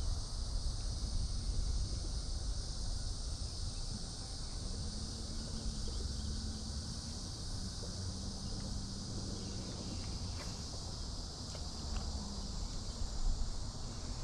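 Steady high-pitched chorus of insects with a low wind rumble on the microphone. A faint, steady low hum comes in about four seconds in and stops near the end.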